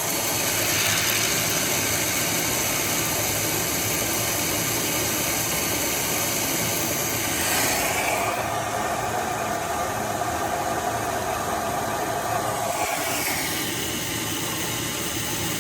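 Water softener control valve running a forced regeneration: water rushing through the valve with a steady hiss that changes character about eight seconds in and again near thirteen seconds as the cycle steps.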